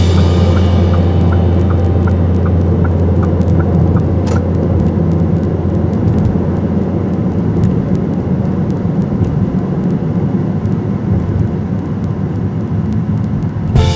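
Steady low rumble of a car's engine and tyres at highway speed, heard from inside the cabin. A faint light ticking, a little over twice a second, fades out after about four seconds.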